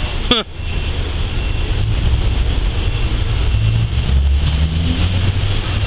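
A car engine idles with a steady low rumble, louder in the second half, amid street traffic. A single short falling chirp comes just after the start.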